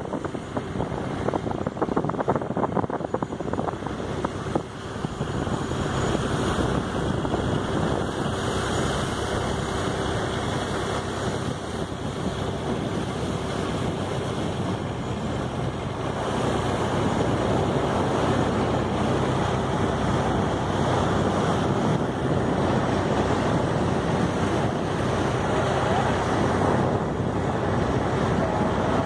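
Wind buffeting the microphone over the wash of the sea around a small fishing boat, with a faint steady hum underneath; it grows a little louder about halfway through.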